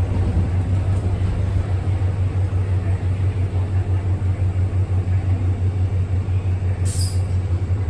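City bus making a strange steady low hum that wavers rapidly in level, with a short hiss about seven seconds in.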